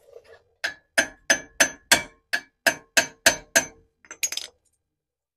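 Hammer striking the nuts on the wheel studs of a 100 series Land Cruiser's drive flange: about ten sharp metallic blows, roughly three a second, each ringing briefly, then a few lighter clinks. The blows knock the cone washers loose so the drive flange can come off the hub.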